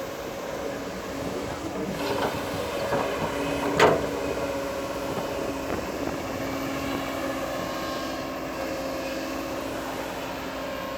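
Crawler bulldozer's diesel engine running steadily, with metal clanks and one loud, sharp clank about four seconds in.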